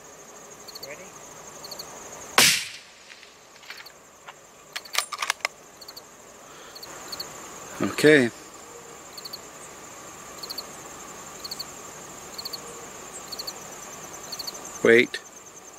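A single loud hunting-rifle shot about two seconds in, fired at a bull elk, over steady insect chirring with regular paired chirps.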